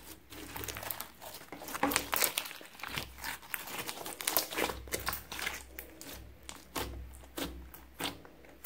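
Hands kneading and squeezing glossy clear slime full of mixed-in beads and glitter, giving a dense, irregular run of wet clicks, pops and crackles.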